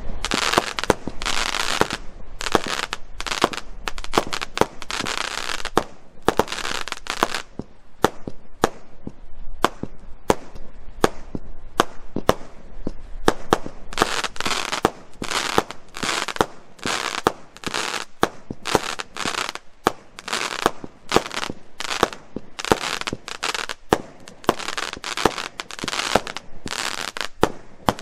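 Consumer fireworks battery (cake) firing shot after shot in quick succession, each tube's sharp report followed by a crackling burst of glitter.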